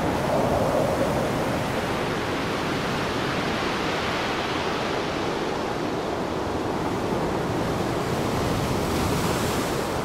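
Strong tropical wind blowing across a lagoon, with small waves washing on the shore: a steady rushing noise.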